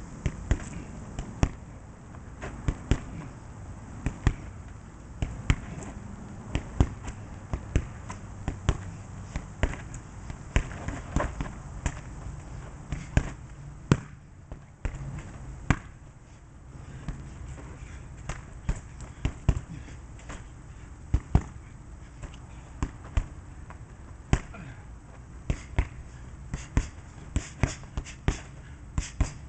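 Gloved punches and kicks landing on a hanging heavy bag: a long run of sharp thuds in quick combinations, with a short break about halfway through and faster strikes near the end.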